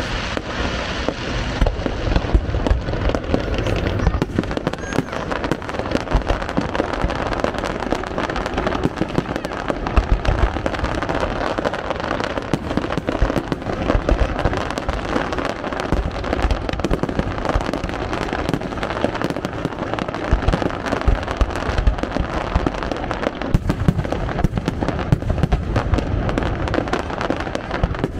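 Fireworks display going off: a dense, continuous barrage of bangs and crackling from bursting aerial shells, with many sharp reports throughout.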